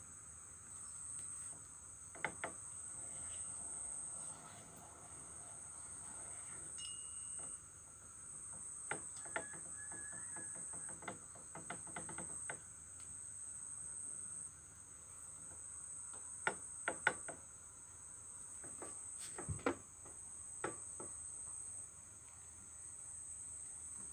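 Crickets trilling steadily in a high, continuous chorus, with a dozen or so sharp metallic clicks and knocks scattered through it as a motorcycle clutch housing and its gears are turned by hand; the clicks are the loudest sounds.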